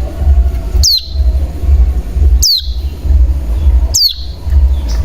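Cigun (ciblek gunung) lure call: a sharp whistle sweeping steeply down in pitch, repeated three times about one and a half seconds apart. Under it runs a loud low rumble that drops out briefly at each call.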